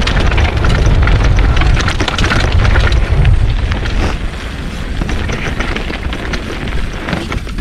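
Wind buffeting a helmet or action-camera microphone during a fast mountain-bike descent, with the tyres and bike rattling and clattering over rough trail. The buffeting eases a little about halfway.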